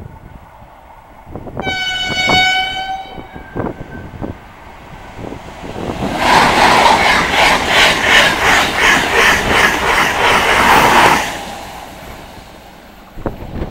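Renfe Class 130 (Talgo 250) Alvia train sounding a single horn blast of about a second and a half, then passing at speed a few seconds later: a loud rush of wheel and air noise with a quick, even beat of wheels over the rail, about three a second, that dies away after about five seconds.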